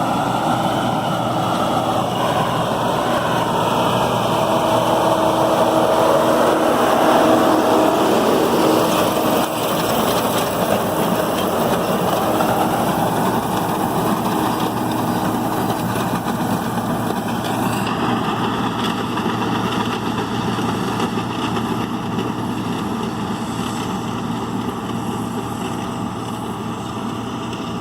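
John Deere 4440 tractor's six-cylinder turbo diesel running steadily under load, with the New Holland Roll-Belt 450 round baler clattering and whirring as it picks up hay and rolls a bale.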